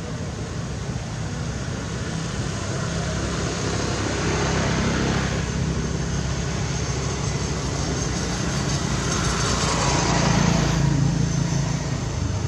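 Steady engine rumble of passing motor traffic, swelling twice as vehicles go by: about four seconds in and again about nine to eleven seconds in.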